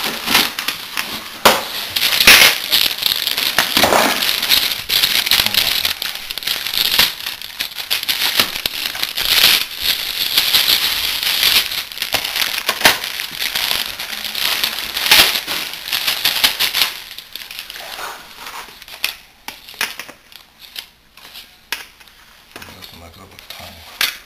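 Plastic packaging bags crinkling and rustling in irregular bursts as cables and accessories are handled and pulled out. Near the end it dies down to a few scattered light clicks and rustles.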